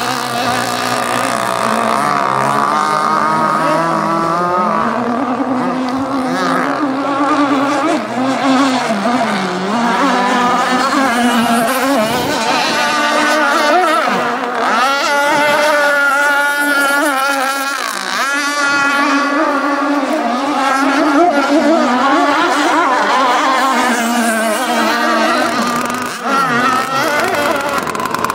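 Radio-controlled model racing powerboat running flat out across open water, its engine a steady high-pitched note that wavers up and down in pitch as the boat turns and passes.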